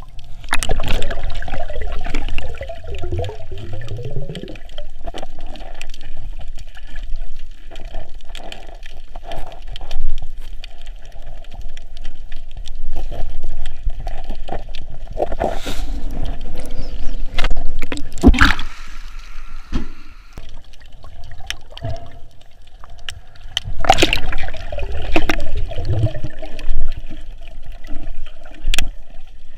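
Sea water sloshing and gurgling around a snorkeler's camera, with a few sharp knocks.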